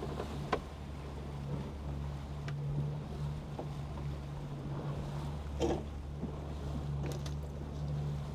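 Outboard motor running steadily at trolling speed, with water rushing along the hull and wind on the microphone. A few short knocks and clatters on deck, the loudest a little past halfway.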